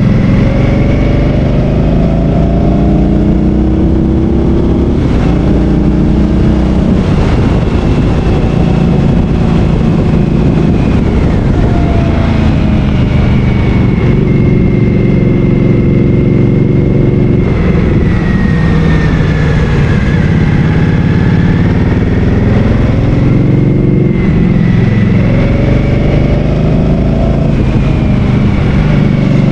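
Motorcycle engine running on the road, its pitch climbing and dropping again and again as the rider speeds up and shifts gear, over a steady rumble.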